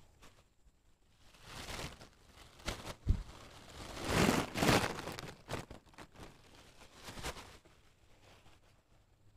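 Close rustling and crinkling from a plastic bag and clothing being handled right next to the microphone, in several swells, loudest about four to five seconds in. There is a sharp knock about three seconds in.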